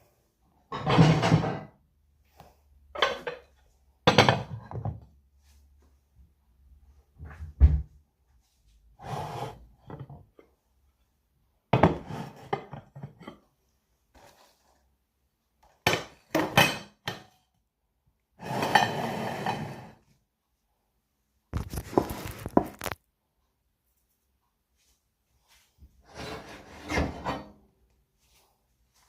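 Utensil scraping and clinking against a pan and plates while pasta is dished up, in about a dozen short bursts with quiet gaps between, a few sharp clinks among them.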